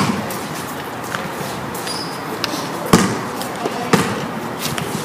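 A basketball bouncing on a hard tiled court: one sharp bounce right at the start and two more about a second apart later on.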